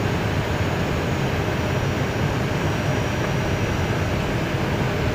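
Steady rushing noise inside an Airbus A320 cockpit on final approach, gear down and flaps fully extended: airflow over the airframe and the engines running together, heaviest in the low range, with a faint high whine above.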